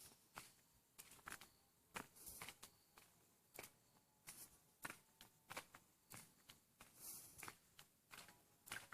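Faint, irregular light clicks and taps, about one or two a second, over near silence.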